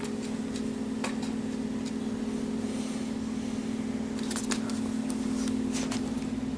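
Sleeping pet snoring: a steady low drone with a few soft clicks.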